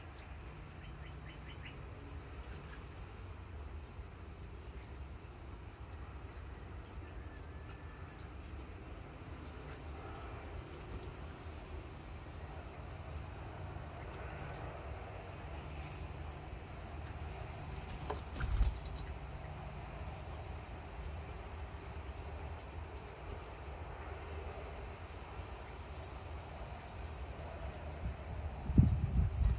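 Outdoor morning ambience: short, high-pitched chirps repeating irregularly about once or twice a second over a low steady rumble, with a brief low thump about two-thirds of the way through and the low rumble swelling near the end.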